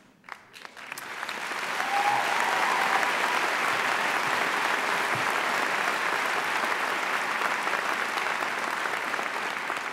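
Large audience applauding. A few scattered claps swell into full, steady applause within about two seconds, which holds and begins to thin near the end.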